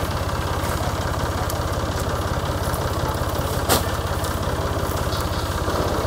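Small tractor engine idling steadily with an even pulsing beat. A single sharp thud sounds partway through.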